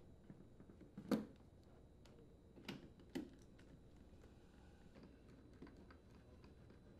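Light knocks and clicks from a refrigerator's rear access panel being set against the cabinet and fastened with a nut-driver screwdriver. Three sharper knocks come about a second in and near the middle, with faint ticks of the driver in between.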